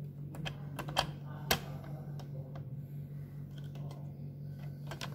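Sharp plastic clicks and taps as a ribbon cartridge is pressed down and locked into a Tally T5040 passbook printer. The two loudest come about a second and a second and a half in, with lighter taps after, over a steady low hum.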